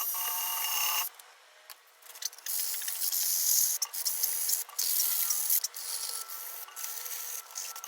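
Cordless screwdriver polishing rusted water-heater parts. Its motor whines and stops about a second in, then after a short pause comes steady, scratchy abrasive scraping and rubbing on the rusty metal.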